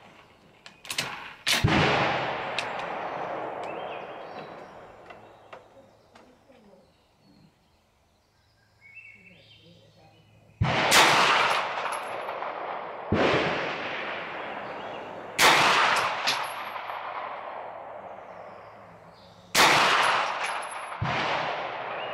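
Hi-Point 995TS 9mm carbine firing single shots, each with a long echoing tail. One shot comes about a second and a half in, then after a long pause five more shots two to four seconds apart. A faint high ring follows several of the later shots.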